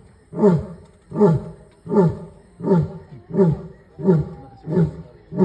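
Asiatic (Indian) lion roaring: a steady run of short, deep grunting roars about one every three-quarters of a second, each falling in pitch, about eight in all.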